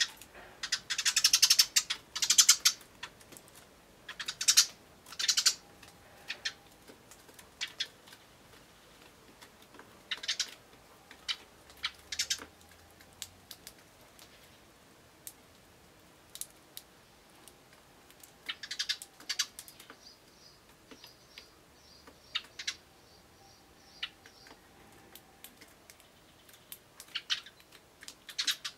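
Eurasian tree sparrows chirping in short bursts, a quick run of chirps in the first few seconds, then single chirps and small groups spaced out, with faint ticks between them.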